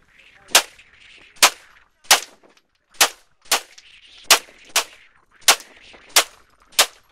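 Ten pistol shots fired one at a time in a steady string, about half a second to a second apart.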